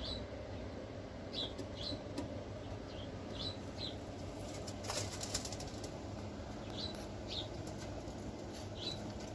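English Fantail pigeons' wings flapping in a brief flurry of sharp strokes about five seconds in. Short high bird chirps come in pairs every second or two over a steady low background noise.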